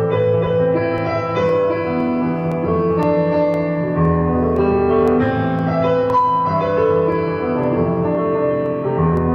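Instrumental piano music: a slow melody of held notes over a sustained bass line, the bass moving to a fuller, lower note about four seconds in and again near the end.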